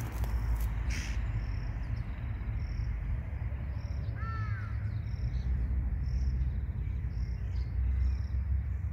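Field ambience: a steady low rumble under an insect chirping about once a second, with a short bird call, a few quick arched notes, about four seconds in. A few sharp clicks sound right at the start.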